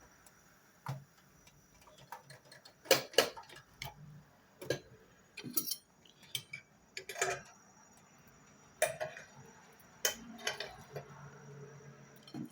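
Irregular clicks and knocks from handling a General Electric waffle baker and its utensils as a finished waffle is taken out, the loudest a quick pair of knocks about three seconds in.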